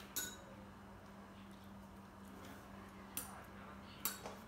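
Quiet room tone with a steady low hum, broken by a few brief faint clicks, one near the start and three in the last second and a half.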